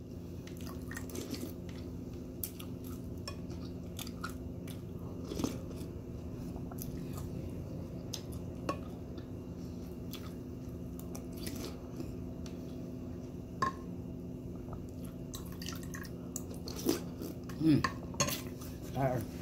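Metal spoon clinking and scraping against a ceramic bowl of cereal and milk, with scattered light clicks and chewing, over a steady low hum.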